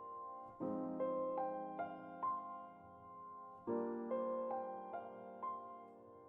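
Soft background piano music: sustained chords struck about every three seconds, with a few single melody notes ringing above them.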